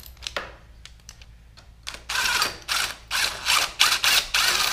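Hand socket ratchet clicking through a quick run of about six strokes, starting about two seconds in, after a few faint clicks, as a tight horn mounting bolt is worked loose.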